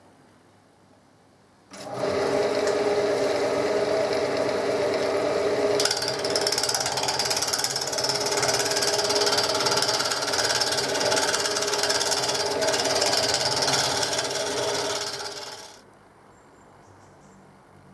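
A woodworking power tool starts up and runs steadily for about fourteen seconds, then winds down. About four seconds after it starts, a harsher, brighter hiss joins in as it bites into the chestnut wood.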